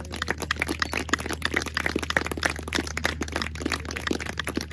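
Wedding guests applauding, many hands clapping at once, as the couple kiss after being pronounced husband and wife.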